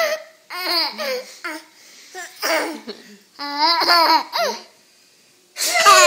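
A toddler laughing in short, high-pitched bursts of giggles and squeals, falling quiet for about a second near the end before breaking into laughter again.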